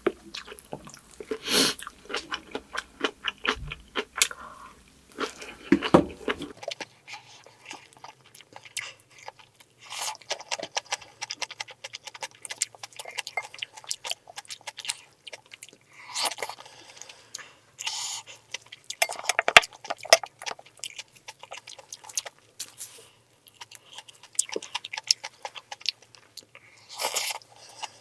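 Close-miked eating: chewing and crunching kimchi with white rice, full of small wet mouth clicks, with a few louder crunches.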